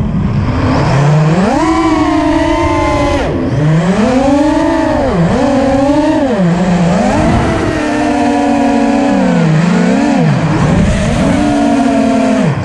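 A 5-inch FPV racing quadcopter's brushless motors and propellers whining, heard from a GoPro mounted on the quad. The pitch swoops up and down over and over as the throttle is punched and cut during low acrobatic flying.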